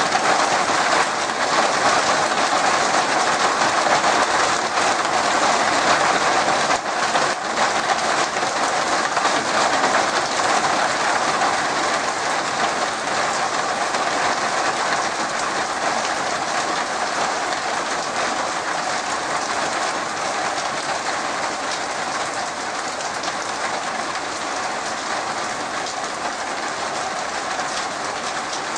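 Heavy rain falling: a dense, steady hiss of drops that eases slightly in loudness toward the end.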